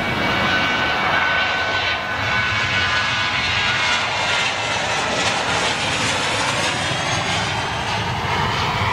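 Boeing 737's twin turbofan engines running at takeoff power as the airliner accelerates down the runway and lifts off. The sound is a steady jet roar, with a high fan whine in the first couple of seconds.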